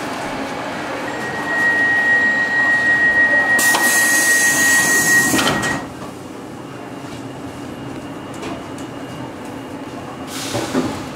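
Stockholm metro train doors closing: a steady high warning tone for several seconds, joined by a loud hiss of air, ending in the doors shutting just under six seconds in. Afterwards there is a quieter steady background from the car.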